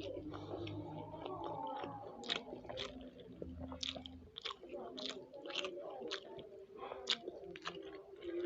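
Close-miked chewing of food, with a series of wet mouth clicks and smacks coming irregularly, about one a second.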